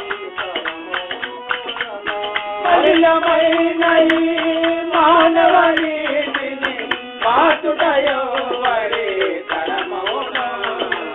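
Telugu devotional bhajan song: a singer holds long, wavering notes over a steady percussion beat, in a lo-fi recording with the high end cut off.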